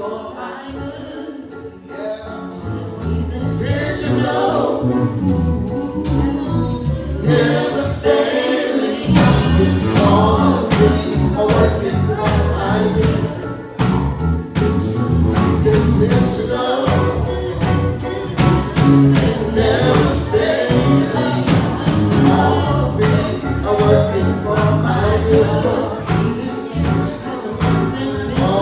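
Gospel music: singing over a band with a steady drum beat. The bass and drums come in fuller about nine seconds in.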